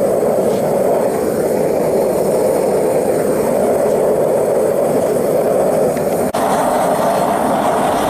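Propane torch burners firing a small melting furnace: a loud, steady roar. It drops out for an instant about six seconds in, then carries on.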